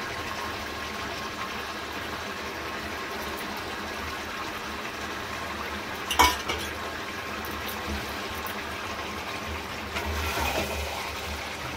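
Chicken curry simmering and sizzling in a kadai as a steady hiss, with a sharp knock about six seconds in. A metal spatula stirs and scrapes through the pan near the end.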